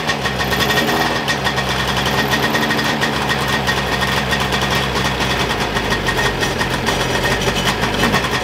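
Restored Sea-Doo XP race ski's two-stroke engine idling steadily out of the water on one of its first runs after the rebuild, burning 100-octane race-gas mix.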